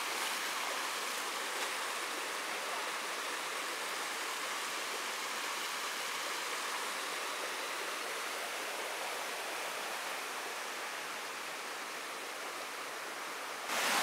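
Steady rushing of a shallow stream flowing over rocks, an even hiss-like wash of water; it gets suddenly louder just before the end.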